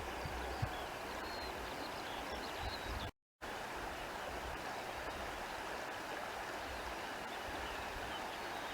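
Steady rush of a stream's running water, with a few faint high chirps over it. The sound cuts out completely for a split second about three seconds in.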